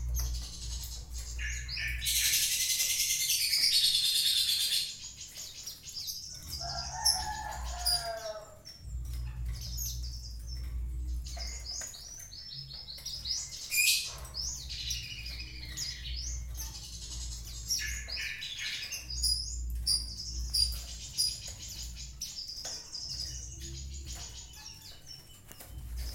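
Small caged songbirds bathing in a water dish: a loud burst of wing-flapping and splashing a couple of seconds in, then shorter flurries. Frequent short, high chirps run throughout.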